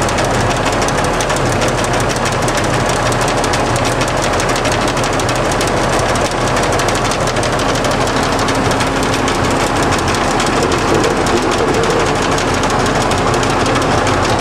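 LeBlond 1610 Servo Shift heavy-duty engine lathe running under power: a loud, steady whir of its geared drive with a fast, even rattle. A faint whine comes in about two-thirds of the way through.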